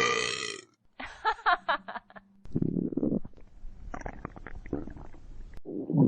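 Human stomach gurgling and churning for about three seconds, cutting off suddenly. Before it come a short vocal sound and a quick run of vocal pulses, and just at the end a low, deep burp begins.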